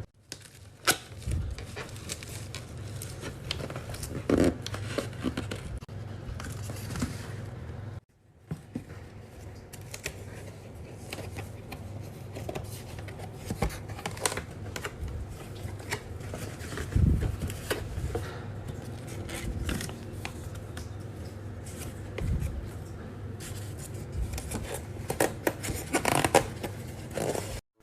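Objects being handled close by: scattered sharp clicks, knocks and short scrapes over a steady low hum, cut off briefly about eight seconds in.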